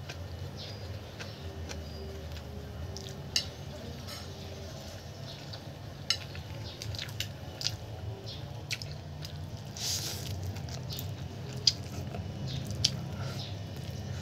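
A person chewing instant noodles close to the microphone, with wet mouth sounds, a brief slurp about ten seconds in, and a few short sharp clicks. A steady low hum runs underneath.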